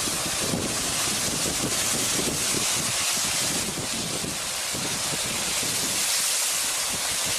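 A steady rushing noise that holds an even level throughout.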